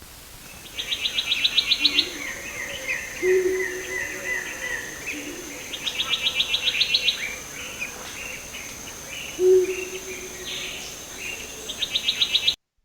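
Greater black coucal giving short phrases of deep hooting notes among a chorus of other forest birds, whose fast repeated trills are the loudest sounds, with a steady high insect whine throughout.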